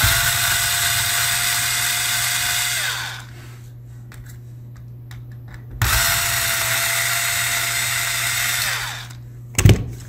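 Small cordless electric screwdriver backing out laptop hard-drive caddy screws: two runs of about three seconds each, the motor whine holding steady and then sliding down in pitch as it winds down. A single sharp knock just before the end.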